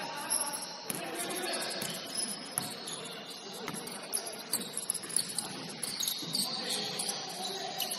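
Basketball sneakers squeaking on a gym court in short high chirps, over a murmur of distant voices in a large hall.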